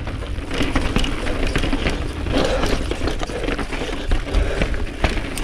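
Mountain bike rolling down rough rock slabs: a steady rumble of tyres on stone, with frequent rattles and knocks from the bike over the bumps.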